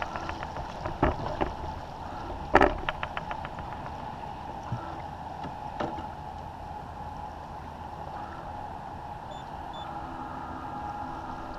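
Water washing along the hull of a First 30 sailboat under sail. A sharp knock comes near three seconds in, followed by a quick run of clicks, with smaller knocks before and after.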